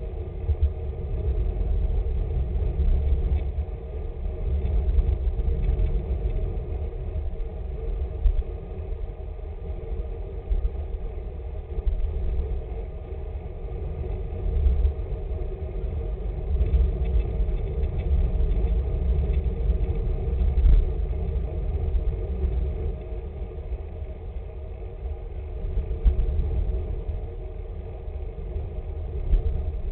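Gusting wind rumble on the microphone of a camera carried in a group of road cyclists on the move, with road noise from the bicycles and a faint steady hum underneath.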